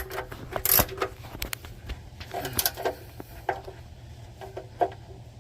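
Scattered clicks and knocks of a wrench on the truck's oil pan drain plug as it is tightened, the loudest within the first second, over a low steady hum.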